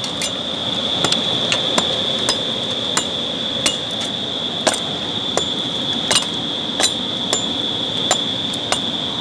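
Steady high-pitched drone of insects over a soft outdoor hiss, with irregular sharp ticks about once or twice a second.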